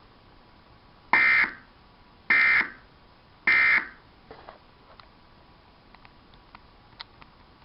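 Emergency Alert System end-of-message signal: three short digital data bursts of shrill two-tone warbling, a little over a second apart, marking the end of a severe thunderstorm warning broadcast. A few faint ticks follow.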